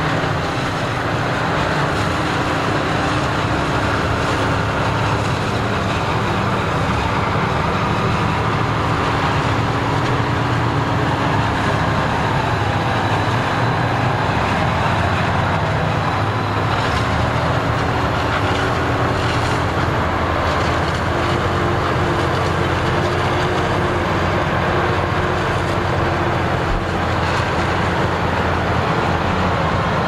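Claas Jaguar self-propelled forage harvester running under load, chopping maize and blowing it into a trailer, together with the engine of the John Deere tractor pulling the trailer alongside: a steady, dense mechanical drone with an engine hum that shifts slightly in pitch.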